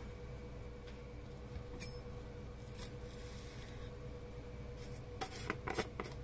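Kitchen knife cutting perilla leaves on a wooden cutting board: a few faint, light taps and scrapes of the blade. About five seconds in comes a quick cluster of clicks as a plastic container is handled.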